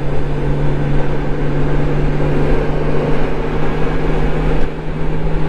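Touring motorcycle engine running steadily at highway speed, heard from the rider's own bike as an even drone, under a constant rush of wind and road noise.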